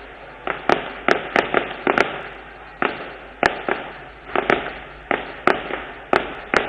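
Firecrackers going off in a rapid, irregular string of sharp bangs, about three a second, each trailing a short echo.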